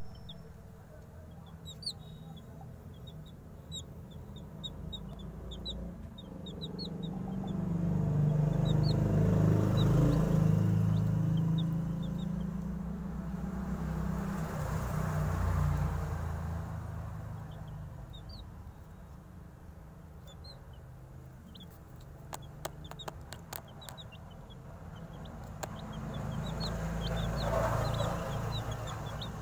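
Domestic chicken chicks peeping: many short high peeps scattered throughout, over a low rustling rumble that swells at times. A quick run of sharp taps comes about three quarters of the way through.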